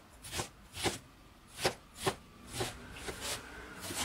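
Cleaver blade chopping green chili peppers into small pieces on a wooden cutting board. The knife strikes the board in separate sharp chops, about two a second and unevenly spaced.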